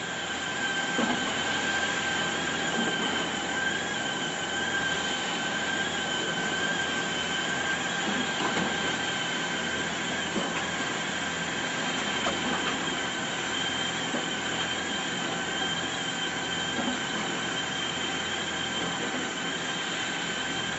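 Coco peat and coir fibre mill machinery running steadily, with a constant high-pitched whine over dense mechanical noise.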